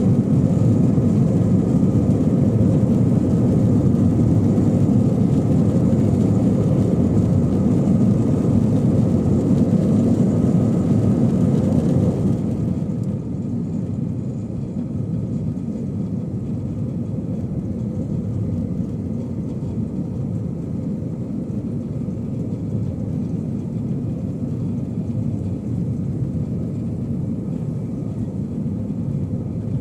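Steady jet engine and airflow noise inside an Airbus A321's cabin during the climb after takeoff. About twelve seconds in it turns noticeably quieter and duller, then holds steady.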